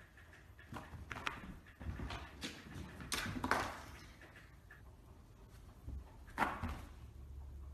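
Pet lop rabbit scampering on a rug and wooden floor: a series of short scuffles and skitters from its paws, loudest about halfway through and again near the end, over a low steady hum.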